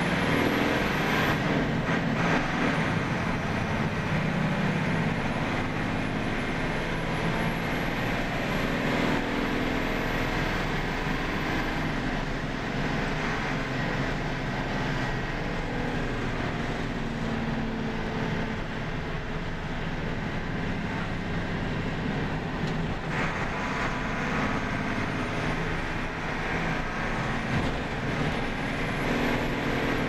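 Mercedes-Benz OF 1721 bus's six-cylinder diesel engine running steadily, with a faint high whistle that slowly rises in pitch over about ten seconds and drops away, then climbs again near the end.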